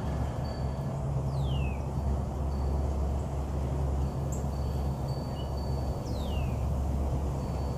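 A bird gives two short whistled calls that slide down in pitch, about five seconds apart, over a steady low rumble.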